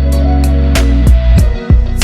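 Instrumental background music: drum hits over low bass notes that drop in pitch.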